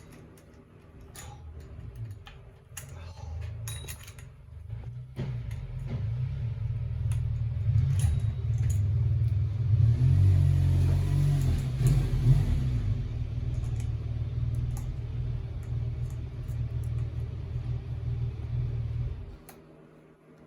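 Small metal clicks and clinks of tools on the handlebar clamp bolts as they are tightened, over a deep rumble that builds up, then cuts off suddenly near the end.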